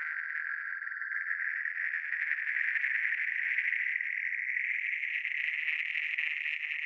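Synthesized sci-fi sound effect: a steady, high-pitched buzzing tone with a rapid flutter, edging slightly higher in pitch.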